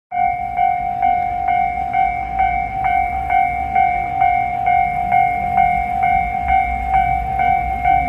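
Japanese level-crossing warning bell ringing its electronic clang, a little over two strokes a second, signalling that the barriers are down for an approaching train. A low rumble sits underneath.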